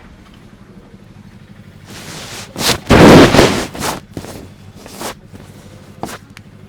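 Hands working on a head during a massage: a loud rush of rubbing noise about three seconds in, lasting just over a second, with several short sharp clicks spread before and after it.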